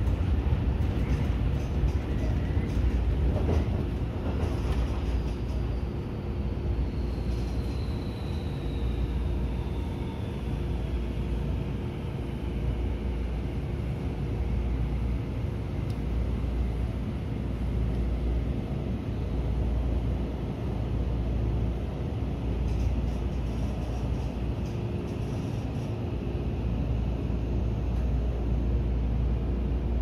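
Seibu 30000 series electric train running, heard from the driver's cab: a steady low rumble of wheels on rail, with a thin motor whine that slides down in pitch over several seconds and later rises again.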